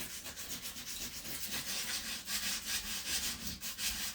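Sandpaper rubbed by hand in quick, even back-and-forth strokes, scraping rust off a toilet's bolt area.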